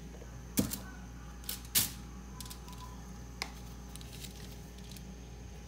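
Chicken pieces frying in oil in a non-stick wok, with a faint steady hiss and a few sharp pops; the loudest pops come about half a second and just under two seconds in.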